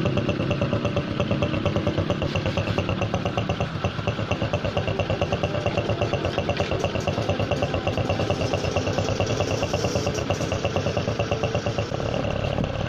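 Honda Supra X 125's single-cylinder four-stroke engine idling, with a fast, even pulsing.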